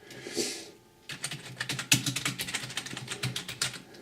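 Keys of a cheap LED gaming keyboard being pressed in a quick, irregular run of clicks, starting about a second in after a brief soft hiss.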